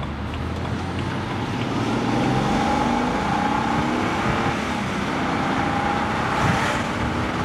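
BMW 335i's N54 twin-turbo inline-six pulling under acceleration through a quiet, stock-style exhaust, heard inside the cabin. The engine note climbs with the revs and shifts as the car changes gear, over steady road noise.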